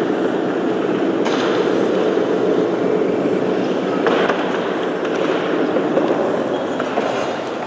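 Dense, crackling noise texture from an electronic sound-art piece, steady throughout, with a few sharp clicks about a second in and again halfway through.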